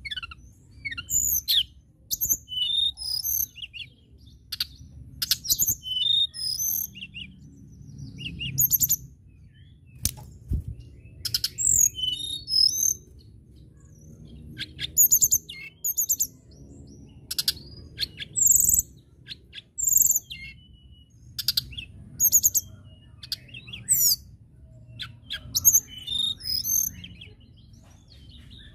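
Cyornis blue flycatcher (tledekan) singing: short, high, fast-warbled phrases repeated every second or two, over a faint low background rumble.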